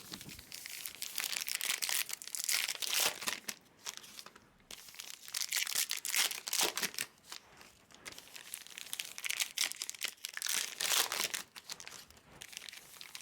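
Crinkling and tearing of foil trading-card pack wrappers as baseball card packs are handled and opened, in irregular rustling bursts with brief pauses about four and eight seconds in.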